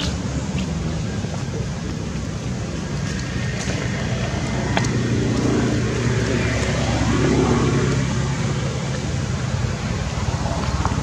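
Steady low rumbling hum of background noise, with a few faint clicks.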